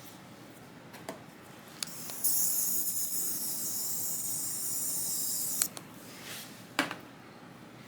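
A steady, high hiss of spray lasting about three seconds, starting about two seconds in and cutting off sharply. It is framed by a few small clicks and taps.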